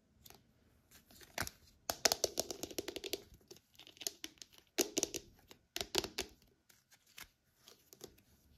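Shrink-wrap film crinkling and crackling on a plastic toy sphere as it is handled and turned in the hands, in several short bursts.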